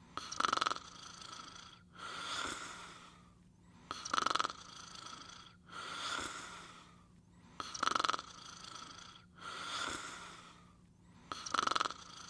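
A sleeper snoring in a regular rhythm: four short, loud snores on the in-breath, each followed by a longer, softer out-breath, about one breath every four seconds.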